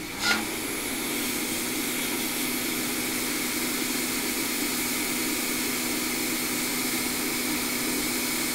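Quick 861DW hot air rework station's blower coming on just after the start, then running steadily: a constant rush of air with a low hum in it, as hot air is played over a small surface-mount resistor to desolder it.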